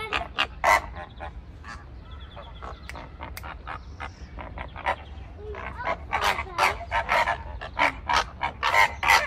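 A flock of greater flamingos honking, many short overlapping calls, becoming busier and louder about halfway through.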